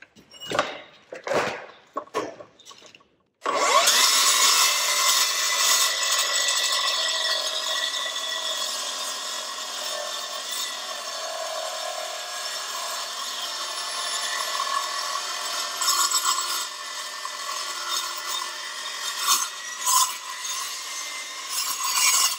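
Milwaukee M18 Fuel 2982-20 8-inch cordless metal-cutting circular saw with a carbide blade, cutting through a steel I-beam. A few short knocks come first. About three and a half seconds in, the motor spins up with a rising whine, and then the blade cuts steadily for nearly twenty seconds.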